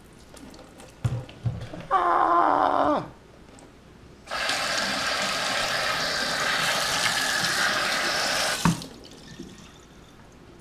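A stainless-steel kitchen sink's faucet runs steadily over a hand for about four and a half seconds, rinsing it, then stops suddenly with a knock as it is shut off. Before that come a few knocks about a second in and a brief pitched sound that drops in pitch as it ends.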